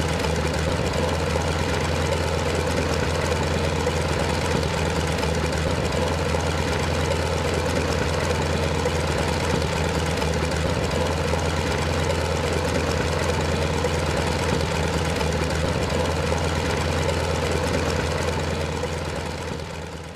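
An engine idling steadily with an even low drone, fading out over the last couple of seconds.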